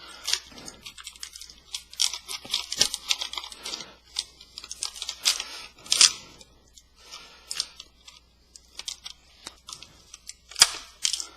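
Tin snips cutting thin, stiff plastic packaging: irregular sharp snips and crackling of the plastic, loudest about six seconds in and again near the end.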